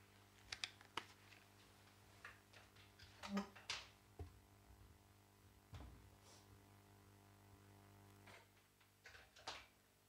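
Near silence with faint clicks and knocks as an electric guitar is lifted off and leaned against a speaker, the loudest knock about three and a half seconds in, over a low steady hum.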